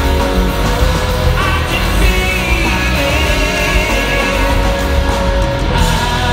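Loud live rock band playing, with electric guitar and drums, heard from the crowd through a phone's microphone.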